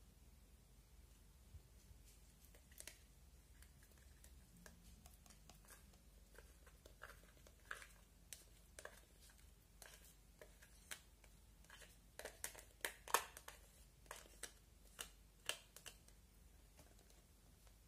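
Slime being squeezed and stretched by hand, giving scattered sharp wet clicks and pops that grow thickest and loudest about twelve seconds in.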